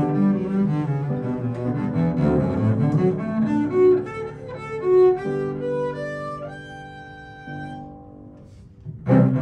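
Double bass played with the bow, with piano accompaniment. The music settles on a held chord that fades to a short pause, and the playing starts again loudly near the end.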